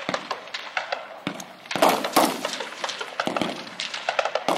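Rifle fire on a firing range: a run of sharp, scattered cracks, the loudest about two seconds in.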